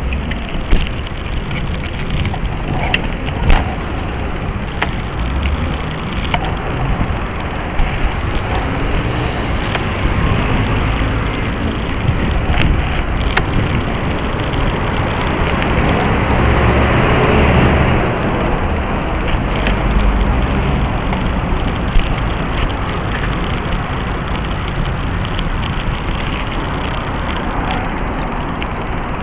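Mountain bike rolling over paved street, heard through a small action camera mounted low on the frame: continuous rumble and rattle of tyres and bike parts, with occasional sharp knocks from bumps. It gets louder about 16 to 18 seconds in.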